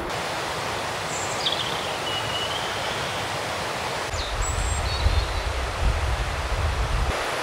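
A steady outdoor rushing noise, with two or three brief high whistled chirps in the first half and a low rumble from about four seconds in until near the end.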